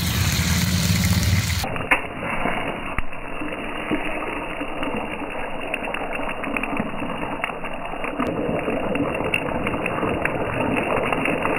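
A cutlet frying in shallow oil on a flat iron griddle: a steady sizzle full of small crackles and pops. For the first second and a half, before it, there is a low steady machine hum.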